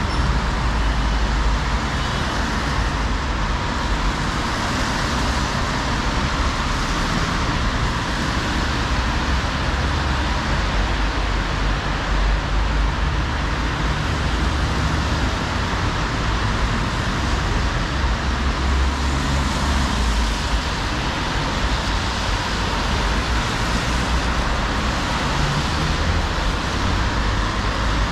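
Steady road traffic on a rain-wet city street: a continuous hiss of tyres on wet asphalt over a low engine rumble from passing cars.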